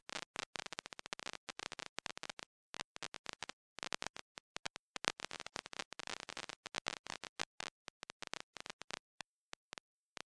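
Faint irregular crackling made of many sharp clicks, with short gaps, thinning to a few scattered single clicks near the end.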